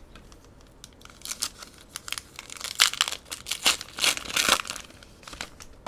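Foil wrapper of a Pokémon Shining Fates booster pack being torn open and crinkled by hand: a dense run of sharp, irregular crackles starting about a second in and easing off near the end.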